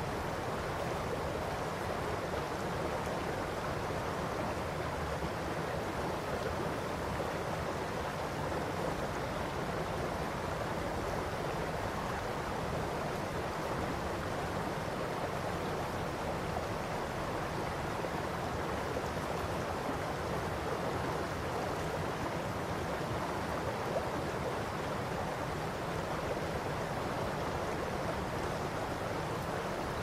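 Shallow river running over a gravel and stone bed: a steady, even babble of water.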